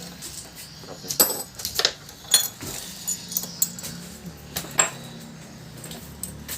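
Small metal parts and tools being handled: irregular sharp clinks and taps, some with a brief metallic ring, over a faint steady low hum.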